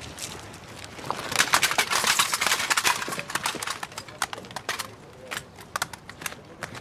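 Clatter and shuffling of a crowd of soldiers on rubble: a dense run of short clicks and knocks, thickest about one to three seconds in, then thinning to scattered clicks.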